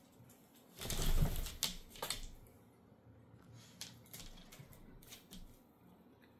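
Dog claws clicking and scuffing on a hardwood floor as a golden retriever and a small dog move about at play, with a brief louder scuffle about a second in.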